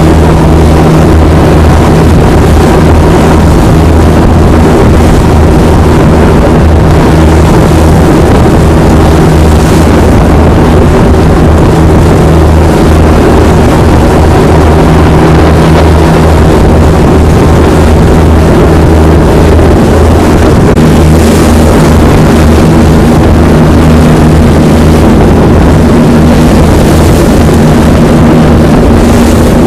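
An Arun-class lifeboat's twin diesel engines running loud and steady under way, with a rushing hiss over them that swells a few times.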